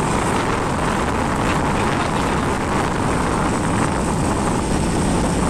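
Steady rush of wind buffeting the microphone of a camera travelling at speed along a road, with vehicle and road noise beneath it.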